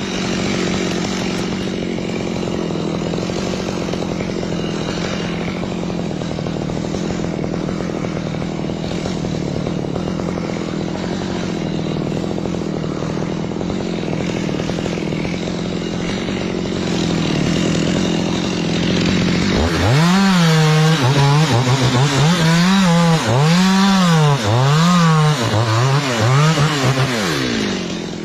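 Chainsaw running at a steady speed, then from about twenty seconds in getting louder, its pitch rising and falling about once a second as the throttle is worked while cutting coconut-tree wood.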